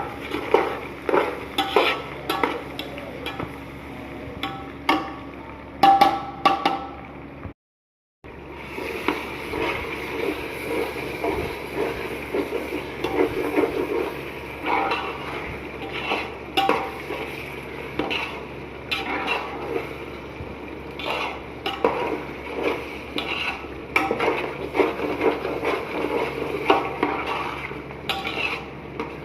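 A metal spatula stirring and scraping chicken frying in a kadhai, with irregular clatters over a steady sizzle. The sound cuts out completely for half a second about eight seconds in.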